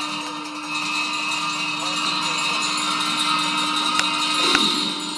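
Tibetan Buddhist monks chanting a ritual liturgy, with a steady held drone and small ritual bells jingling; two short clicks sound near the end.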